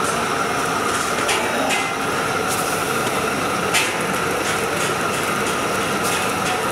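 Steady sizzling hiss of gram-flour-batter-coated bread slices frying in oil on a flat street-stall griddle, broken by a few sharp metal utensil clinks, the loudest a little before four seconds in.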